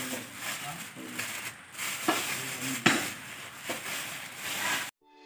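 Clear plastic bag crinkling and rustling as a hand packs cut beef into it, with a few sharp clicks, cutting off suddenly near the end.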